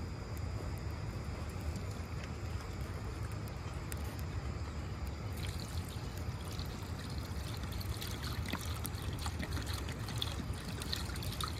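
Water poured from a plastic bottle into a cooking pot, splashing and trickling from about five seconds in, over a steady low rumble.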